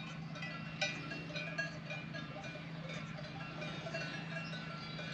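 Cowbells on grazing livestock clanking irregularly, short metallic rings scattered through, over a steady low hum.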